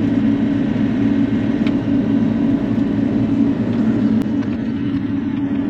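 Bobcat E42 mini excavator's diesel engine running steadily while the machine works.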